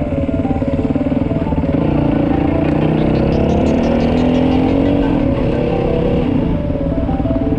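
Yamaha WR450F single-cylinder four-stroke dirt bike engine running under the rider at low speed on a gravel climb; the revs drop about two seconds in and pick up again a couple of seconds later.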